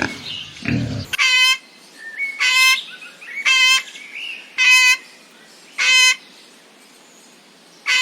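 A bird calling five times, short calls about a second apart, each with a rich, many-overtoned tone, with fainter chirps in between.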